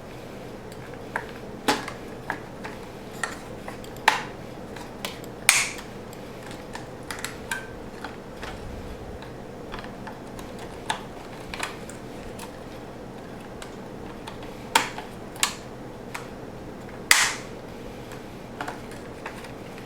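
Irregular light plastic clicks and taps from hands working on a Roomba 500 series robot vacuum's chassis while its bumper and cliff sensor cables are routed and fitted. A few clicks stand out louder, over a faint steady hum.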